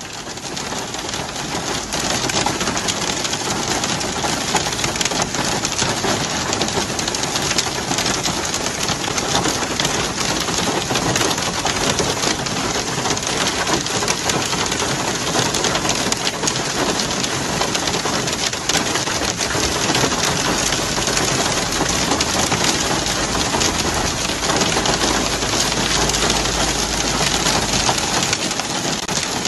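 Heavy rain mixed with hail pelting down, a dense, steady hiss of countless small impacts.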